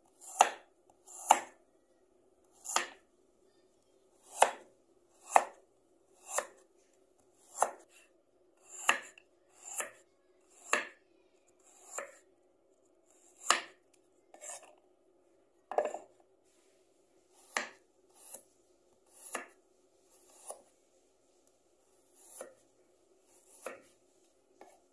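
Kitchen knife slicing peeled single-clove garlic on a wooden cutting board: one sharp chop about every second, slightly uneven. A faint steady hum runs underneath.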